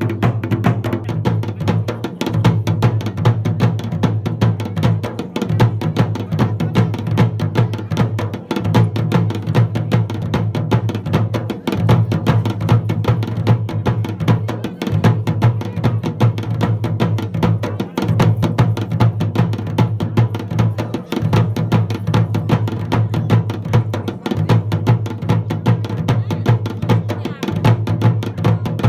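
Drum-led music: fast, steady drumming over a sustained low tone that breaks off briefly every few seconds.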